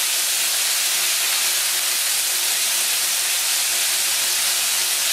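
Eggs frying in a hot pan: a steady sizzling hiss that doesn't let up.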